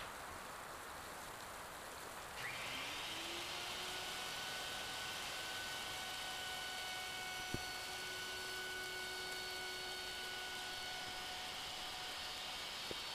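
A steady hiss. About two and a half seconds in, a small handheld electric power tool switches on: its motor whines up to speed, then runs steadily at a high, even pitch, with one sharp tick near the middle.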